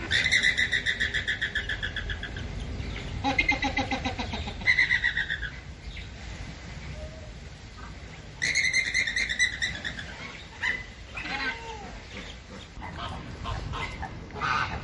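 A bird calling in rapid trills of high chirps, about ten a second, twice in long runs, with shorter calls in between.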